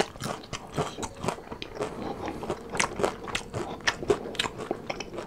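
Crispy fried chicken being bitten and chewed close to the microphone: a quick, irregular run of crunches.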